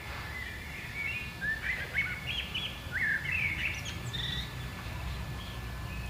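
Small birds chirping: a quick flurry of short rising chirps in the middle, over a steady low background rumble and a faint steady high whine.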